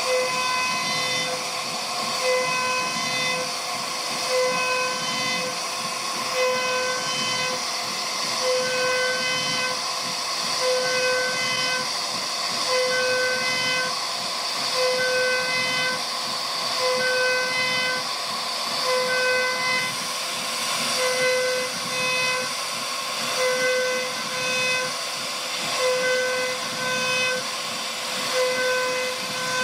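CNC router spindle whining steadily as the bit carves wood, over a continuous cutting hiss; the whine swells and eases about every two seconds.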